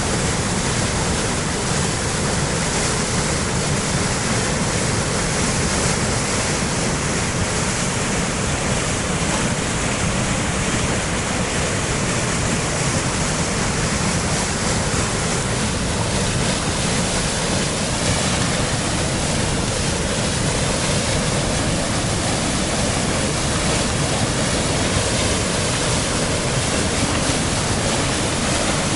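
Waterfall in spring flow: a steady, loud, even rush of falling water.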